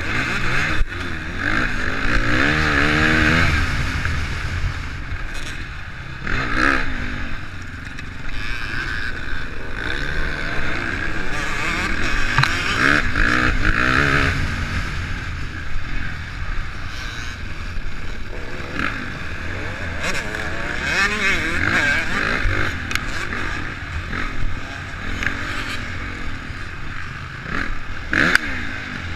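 Honda CRF450 motocross bike's single-cylinder four-stroke engine under race throttle, revving up and falling back again and again as it rides the dirt track, with occasional sharp knocks.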